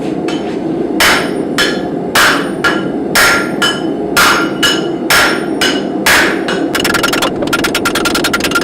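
Hammer striking a drilled Damascus billet on an anvil, flattening it to bring out a raindrop pattern: heavy blows about twice a second with a ringing edge, then a fast run of lighter strikes near the end. A steady low rush of noise runs underneath.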